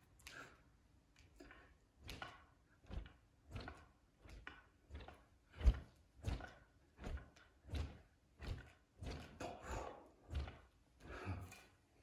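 A heavy 900 g wooden practice sword (bokken) swishing through the air in repeated one-handed sideways swings, a short whoosh about every half second to second. A dull thunk stands out a little before the middle.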